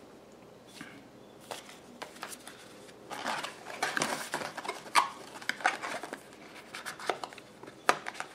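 Paper leaflets and a cardboard box insert being handled, shuffled and folded: irregular rustling with scattered sharp clicks and taps, busiest about three to six seconds in.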